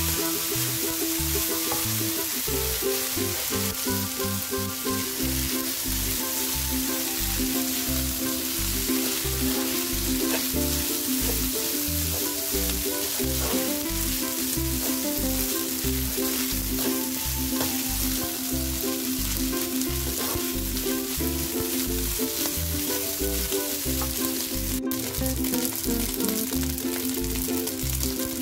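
Fried rice sizzling in a hot nonstick wok as it is stirred and tossed with a spatula, with one sharp tap near the end. Background music with held notes and a steady beat plays under it.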